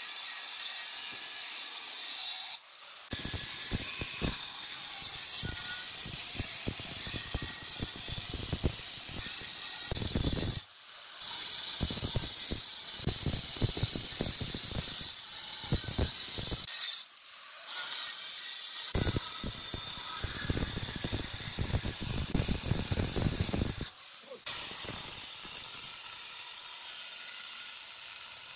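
Handheld angle grinder running with an abrasive disc, grinding a granite slab: a steady high motor whine with rough scraping whenever the disc bears on the stone. It breaks off briefly about four times.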